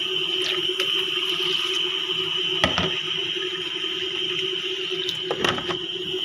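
Water running from a tap into a stainless steel kitchen sink, a steady hiss with a constant hum under it, and two sharp knocks, one a little under three seconds in and one near the end.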